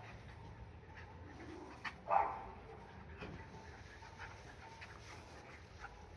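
Dogs play-wrestling, with one short bark about two seconds in; otherwise only a faint low background.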